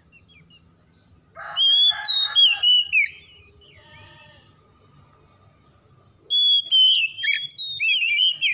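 Oriental magpie-robin singing two loud bursts of fast whistled song, the first about a second and a half in and the second about six seconds in, each a run of quick notes sliding up and down.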